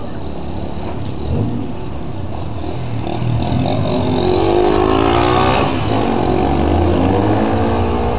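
A road vehicle's engine speeding up, its pitch rising from about three seconds in and loudest around the middle, then running on steadily over a low hum.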